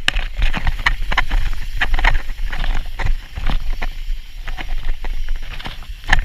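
Mountain bike riding fast over a dirt trail: tyres rolling and the bike clattering and knocking over bumps many times, over a constant low rumble of wind on the microphone.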